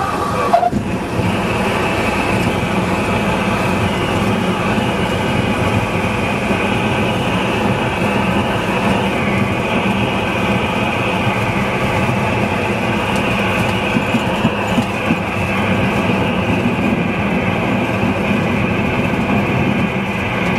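Cessna 172's single piston engine and propeller running steadily, heard inside the cockpit, with air and wheel rush as the plane rolls down the runway after landing. A brief knock comes about half a second in.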